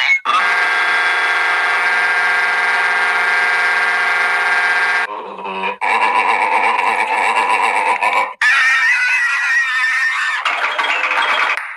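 A run of cartoon sound effects played one after another. First comes a steady, many-toned drone lasting about five seconds, then a short low effect, then three shorter wavering effects, each cut off sharply.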